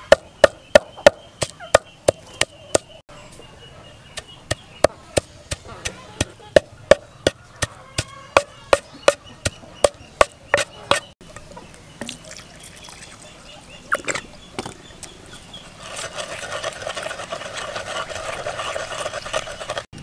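Wooden pestle pounding garlic and green herbs in a clay mortar, a steady knocking about three strokes a second that stops about eleven seconds in. A few single knocks follow, then a few seconds of steady rasping noise near the end.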